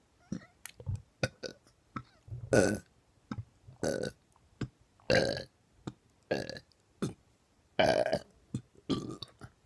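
A person burping over and over: a run of short belches, the louder ones coming about every second and a half, with short clicks between them.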